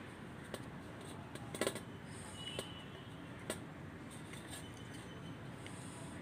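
Faint handling sounds of wool yarn and a needle worked against a plastic flower loom while a knot is tied: a few small sharp clicks, the loudest about a second and a half in and another about three and a half seconds in, over low room hiss.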